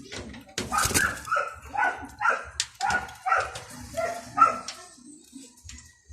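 A dog barking in a quick series of about eight short barks, then stopping about four and a half seconds in.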